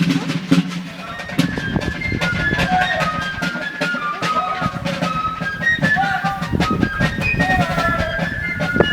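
Fife playing a quick stepwise melody of high notes over drum strokes, as in a fife-and-drum march.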